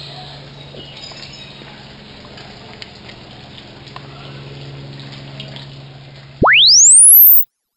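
A low steady hum with scattered faint clicks, then about six and a half seconds in a loud electronic pure tone sweeps rapidly upward from very low to very high pitch in about a second and cuts off suddenly.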